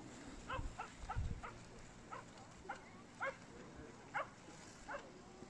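A dog barking: a string of about nine short barks, irregularly spaced. A couple of low thumps fall in the first second or so.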